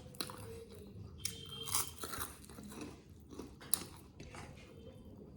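Close-up mouth sounds of someone eating chicken curry with rice: chewing and biting, with scattered short crunches and clicks.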